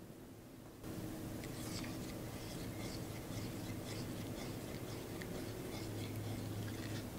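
Silicone spatula stirring chocolate into melted browned butter in a glass bowl: soft, repeated scraping and swishing strokes against the glass, starting about a second in, over a low steady hum.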